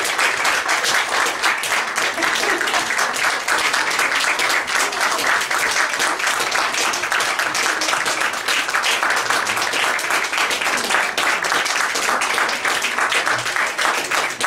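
Audience applauding, a dense, steady clatter of many hands clapping that cuts off abruptly.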